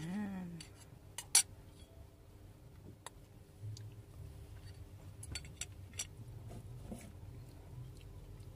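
A metal spoon and fork clinking and scraping against a bowl while eating. There is one sharp, loud clink about a second and a half in, and lighter clinks come at intervals after it. A short hummed voice sound comes at the very start.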